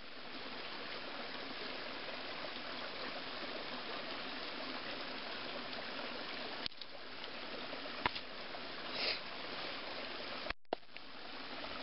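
Steady rushing background noise, with a few faint clicks and a short cut-out in the sound near the end.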